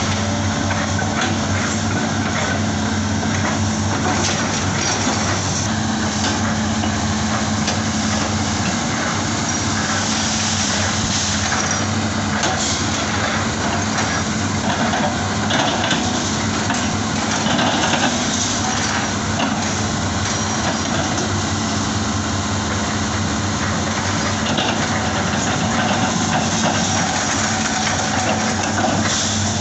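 Hitachi excavator's diesel engine running steadily, with scattered knocks and crunching from the machine at work.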